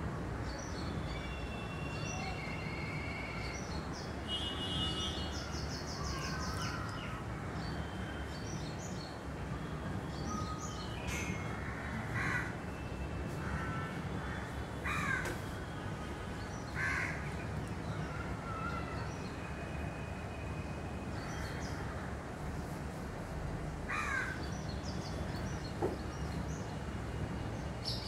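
Crows cawing a few times, spread out, with short falling caws, over a steady low background rumble and a scatter of thin, high chirps from small birds.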